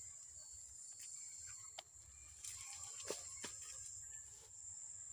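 Insects chirring, a faint steady high-pitched drone, with a few soft clicks in the middle, the sharpest about three seconds in.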